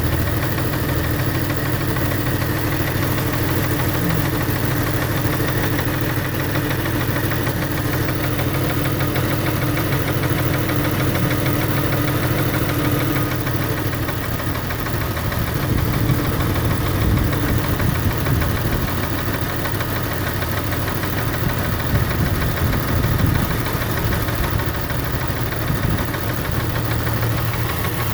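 Jeep Grand Cherokee's 4.0-litre inline-six engine idling with a rapid, even ticking over the engine note: the tick noise the owner is showing.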